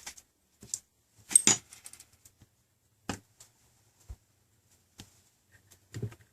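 A few sharp clicks and clinks of small tools and parts being handled at a workbench, the loudest cluster a little over a second in, then single ticks spread apart.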